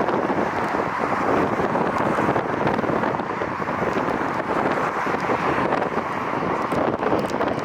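Strong wind buffeting the camera's microphone: a steady rushing noise.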